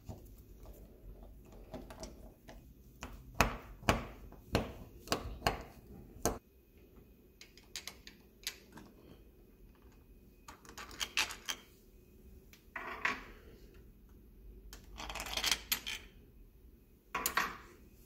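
Phillips screwdriver backing out the screws of a deadbolt's inside thumb-turn plate: irregular metallic clicks and scrapes of the driver tip and screw in the metal plate, thickest in the first several seconds, with short scraping handling noises later as the loose screws come out.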